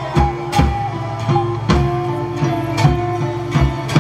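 Live folk band playing medieval-style music: a steady drumbeat, about two strokes a second, under a stepping melody line and a held drone.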